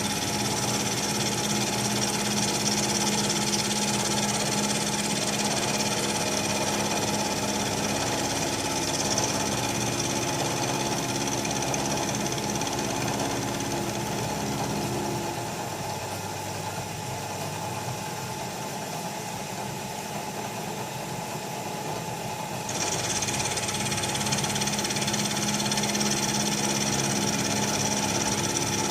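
Bridgeport CNC milling machine running steadily, a motor hum with a high whine, while it mills a threaded port in a cast master cylinder. About halfway through the lower hum stops and the sound thins out. Several seconds later the full machine sound returns abruptly.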